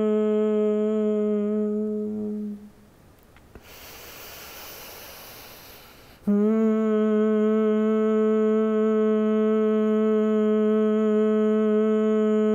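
A woman hums a long, steady "mmm" through closed lips, the bee breath of bhramari pranayama. The hum stops about two and a half seconds in and a slow breath in is heard. A new hum at the same pitch starts about six seconds in and holds steady.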